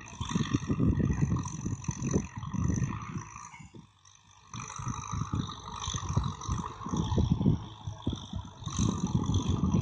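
Wind buffeting the microphone in irregular gusts that drop away briefly a little before halfway, over the faint steady drone of a distant tractor working a field.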